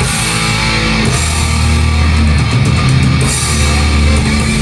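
Live heavy metal band playing loud: distorted guitars and bass holding low notes over a drum kit with constant cymbal wash.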